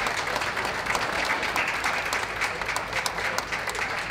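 Crowd applauding steadily, many hands clapping.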